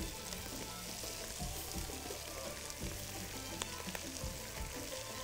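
Onion-and-spice mixture sizzling in an aluminium pot on a gas burner as handfuls of drained rice are dropped in, under soft background music.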